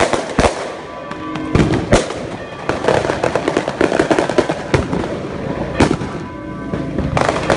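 Handheld fireworks going off: a rapid, irregular run of sharp bangs and crackling, densest about three to five seconds in, with a few louder single bangs among them.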